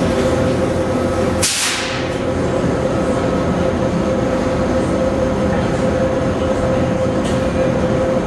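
Steady, loud mechanical rumbling drone with a constant hum running through it, and a brief high hiss about one and a half seconds in.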